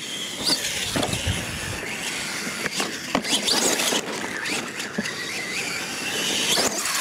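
Radio-controlled monster truck driving on dirt: its motor whines up and down in pitch as the throttle is worked, with tyres scrabbling and a few sharp crunches from the chassis and wheels.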